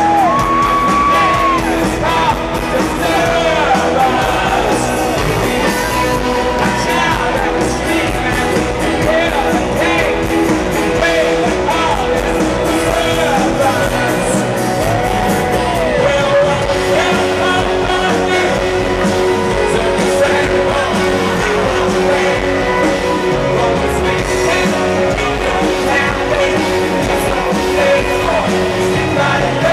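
Live rock band performing, a male lead singer singing loudly over electric guitars, heard through a stadium PA from among the audience.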